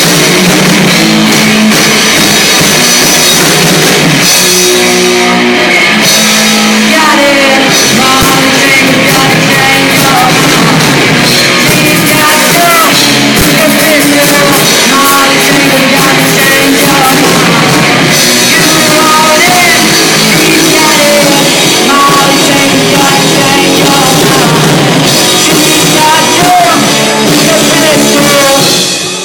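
Loud rock music with singing over drums and guitar.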